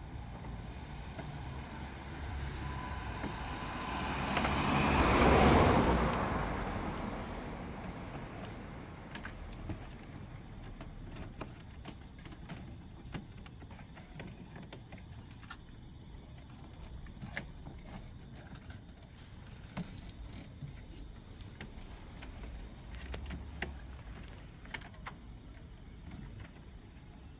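A passing car swells and fades about five seconds in, followed by scattered light clicks and taps from hands working on plastic trim and wiring.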